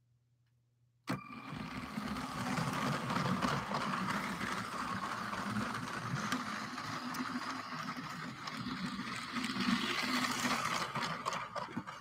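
LEGO City 60197 passenger train's battery-powered Powered Up train motor starting with a sudden jump about a second in, then running steadily with a hum and the rattle and clicks of its wheels on the plastic track. It eases off slightly near the end.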